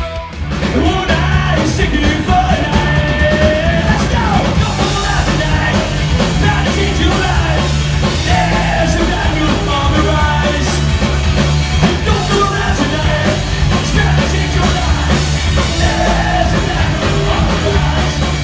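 Punk rock band playing live: drums and guitars under shouted, yelled singing.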